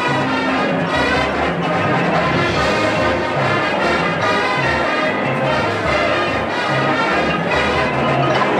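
Full marching band playing, with trombones and trumpets leading over a steady low accompaniment.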